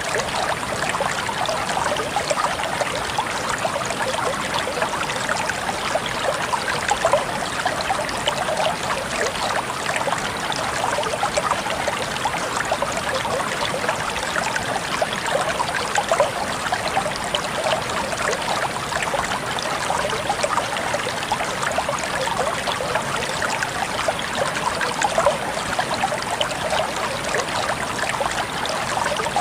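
River water flowing, a steady, even rush and trickle of water with no breaks or changes.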